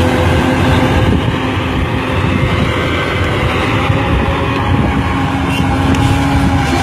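Excavator diesel engine running steadily, a constant drone with a held hum running through it.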